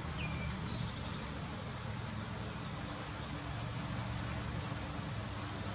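Outdoor background: a steady low rumble with a few faint, short, high chirps.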